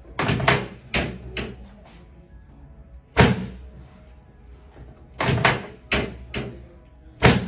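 Sharp thumps of a chiropractic treatment, about ten in all, coming irregularly, singly and in quick clusters of two or three.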